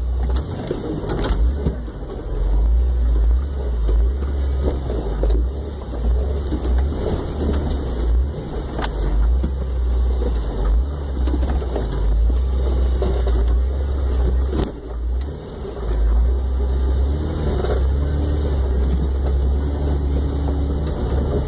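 Off-road vehicle crawling over a rocky dirt trail, heard from on board: a steady low engine rumble with scattered knocks and rattles as the truck works over rocks.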